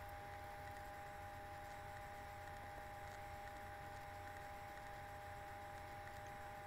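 Steady hiss and low hum with a constant high whine: the background noise of the recording itself, with no distinct sound standing out.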